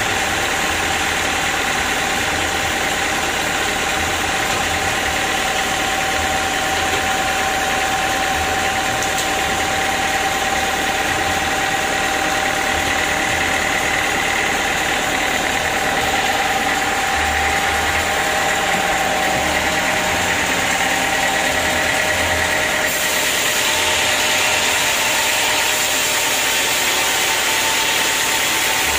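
Band sawmill running steadily: a constant mechanical hum with a thin, steady whine over it. Roughly three-quarters of the way through, the sound turns brighter and hissier.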